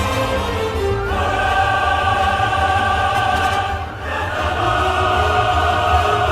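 Orchestral music with a choir singing long held chords, which change about a second in and again about four seconds in, over a steady low pulse.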